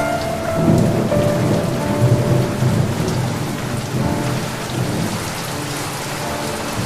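Steady rain falling, with a long rumble of thunder that builds about half a second in and rolls on for several seconds before easing.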